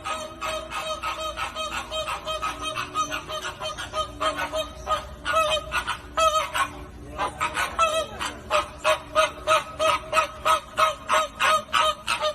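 A flock of flamingos honking: short goose-like calls overlap in a quick, continuous chatter of several calls a second.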